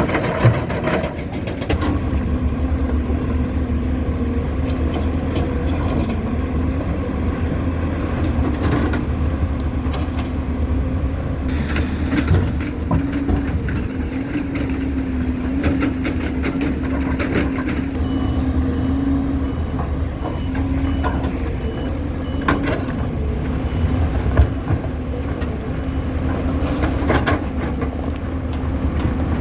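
Heavy diesel construction machinery running steadily, with scattered knocks and clanks. A short falling hiss comes about twelve seconds in, and a faint reversing beep repeats for a few seconds past the middle.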